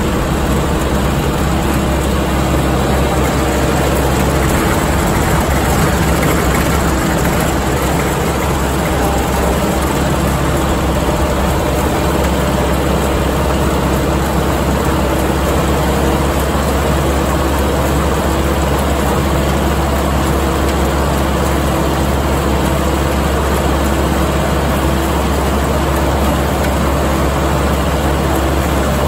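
Kubota MX5200 tractor's diesel engine running steadily under load, driving a New Holland haybine through the power take-off as it cuts standing hay; a constant low hum with the mower's running noise mixed in.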